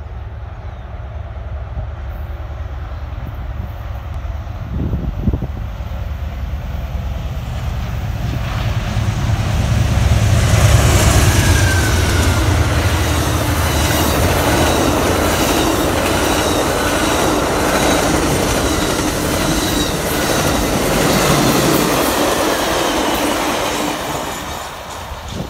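Amtrak passenger train passing at speed. Its two GE P42DC diesel locomotives rumble in and are loudest about ten seconds in. Then the long string of passenger cars rushes past with wheels clicking rhythmically on the rails, and the sound drops away near the end.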